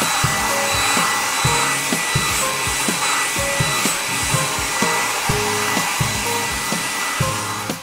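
Cartoon blow-dryer sound effect: a steady rush of air with a thin high whine, over children's background music with a steady beat.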